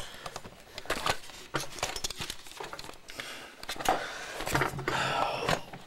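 Handheld camcorder being moved and repositioned, giving a run of clicks, knocks and rubbing right against the microphone, with a brief low vocal sound about four seconds in.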